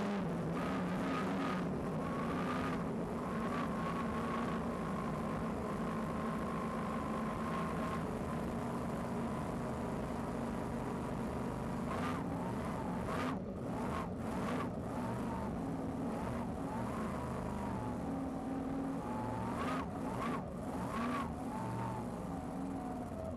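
Unlimited light hydroplane engine running hard under way, heard from inside the cockpit: a steady low drone with a high whine that holds steady at first, then wavers up and down in pitch from about halfway as the revs change. A few short sharp bursts of noise come in around the middle and again near the end.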